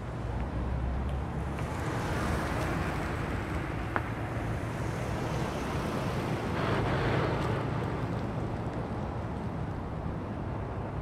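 Cars and pickup trucks driving past on the road close by, with wind rumbling on the microphone. The traffic noise swells about two seconds in and again about seven seconds in, and there is one sharp click about four seconds in.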